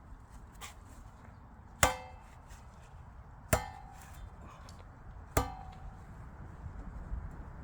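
Three sharp axe blows on chestnut firewood, about two seconds apart, each with a short metallic ring.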